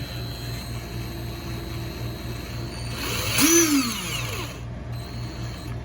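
Bauer cordless impact driver's motor run briefly with no load, about three seconds in: it speeds up and winds back down, as when showing off its variable-speed trigger.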